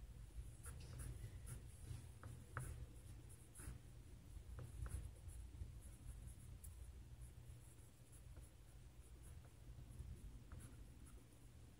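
Faint scratching of a colored pencil on sketchbook paper in quick, short strokes, most of them in the first half.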